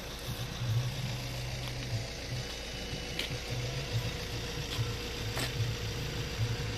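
Low, steady rumble of a running vehicle engine, with a faint steady hum and a few light clicks.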